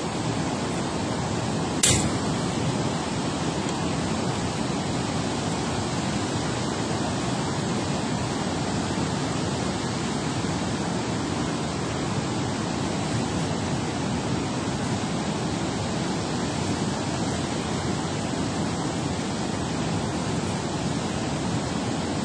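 Steady rush of water pouring through a dam spillway, with one sharp knock about two seconds in.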